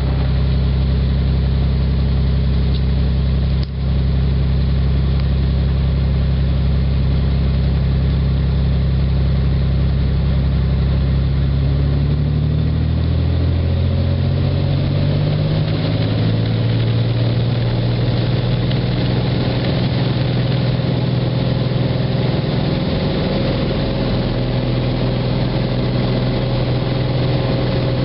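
Cessna 206 Turbo's turbocharged six-cylinder piston engine and propeller, heard from inside the cabin. It runs steadily at low power for taxi, then its note rises a little before halfway as power comes up for the takeoff roll, and it holds there.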